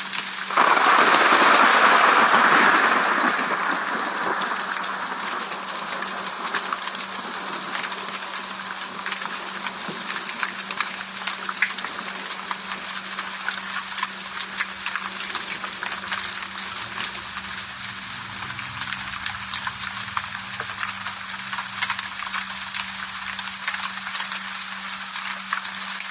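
Rain falling, a dense patter of separate drops hitting a surface, with a louder surge of rain in the first few seconds that fades back to a steady patter. A steady low hum runs underneath.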